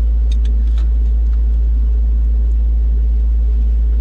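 A large engine running steadily: a deep, constant drone, with a few faint light ticks in the first second.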